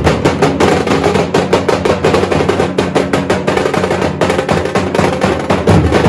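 A dhol ensemble: several large barrel drums (dhol), beaten with hand and stick, and a bass drum, playing a loud, fast, dense rhythm.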